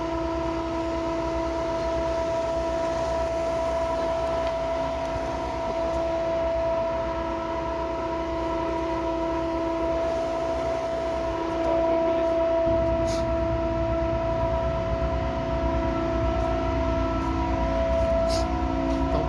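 A vessel's engine running with a steady drone, several held tones over a low rumble; the rumble grows louder about two-thirds of the way through.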